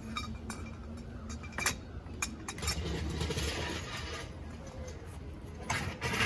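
Metal clinks and clicks from a hand socket wrench working a car's lug nuts during a wheel change, with a stretch of denser noise in the middle and again near the end.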